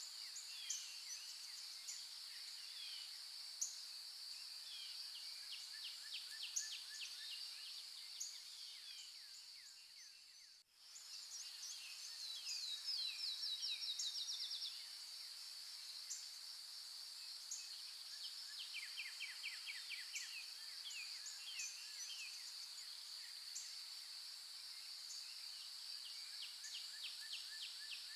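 Steady high-pitched insect drone with many birds chirping over it. The whole soundscape fades out about ten seconds in and comes straight back, and a quick run of louder, rising chirps follows a couple of seconds later.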